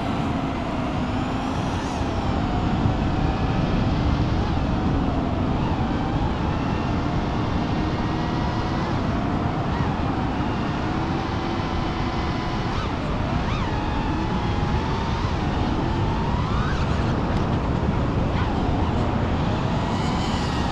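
Brushless motors and propellers of a 5-inch FPV freestyle quadcopter whining in flight, the pitch wandering and swooping up and down with the throttle, with sharp rises a few times, over a steady rushing noise.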